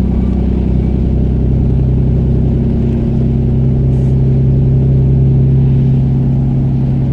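A motor vehicle's engine running steadily: a low, even drone that holds the same pitch.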